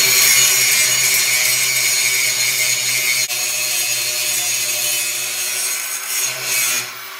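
Angle grinder grinding down a fresh weld on a steel frame rail: a steady, loud, high hiss of the disc on metal over the motor's whine, wavering and easing off near the end.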